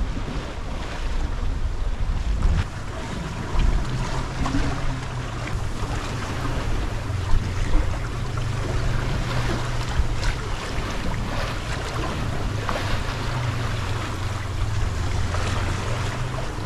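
Water rushing and washing along a sailboat's hull as it sails in following seas, with wind buffeting the microphone. A steady low hum comes in about four seconds in.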